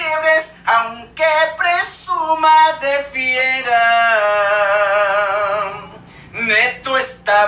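A single voice singing, phrase by phrase, with one long held note with vibrato past the middle, a brief drop, and then more short sung phrases near the end.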